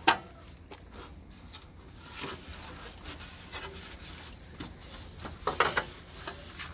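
Handling noise from a hand-held camera being moved: a sharp knock at the start, then scattered rubbing and clicking, with a brief cluster of rustles about five and a half seconds in.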